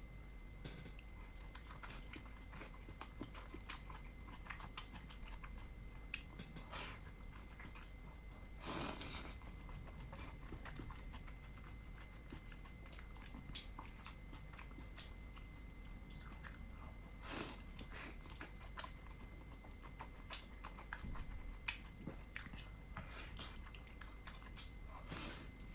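Close-up sound of a person chewing and biting dumplings, with many small wet mouth clicks. Three louder, longer noisy sounds stand out: about nine seconds in, about seventeen seconds in, and near the end.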